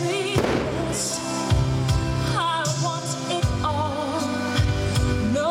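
Music: a song with a singing voice over sustained chords and a regular bass beat.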